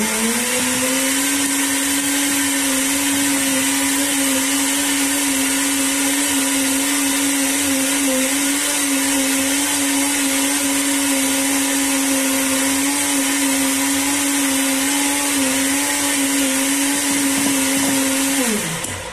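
Electric kitchen blender reaching full speed about a second in, running at a steady pitch, then winding down near the end.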